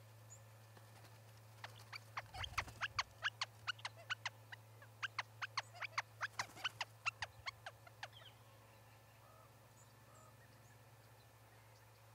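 A small bird calling from the nest in two quick runs of sharp, high chip notes, about four to five a second. It starts about two seconds in and stops about eight seconds in.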